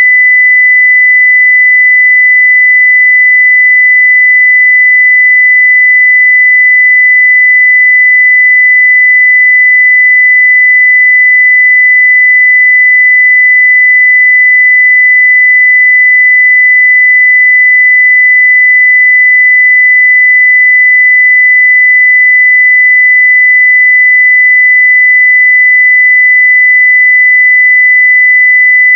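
A steady 2 kHz sine-wave test tone at full level (0 dB), one pure unchanging pitch.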